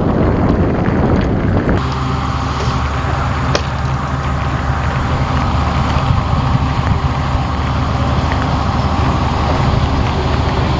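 Steady low engine drone with wind and rumble from riding in a moving vehicle. The sound changes abruptly about two seconds in.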